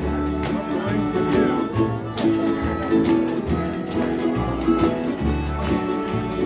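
Acoustic country-bluegrass jam: several acoustic guitars strumming a steady rhythm over an upright bass line, with fiddle and harmonica playing held notes on top.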